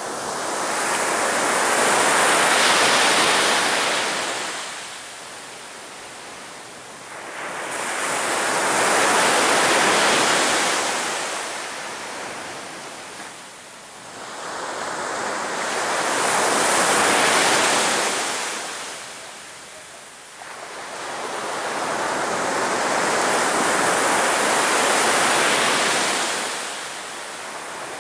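Sea waves breaking on a sandy beach and washing up the shore. Four waves each swell up and die away over several seconds, about one every seven or eight seconds.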